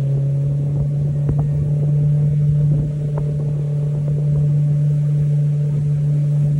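Boat motor running at a steady, even pitch, a low hum with a few faint ticks over it.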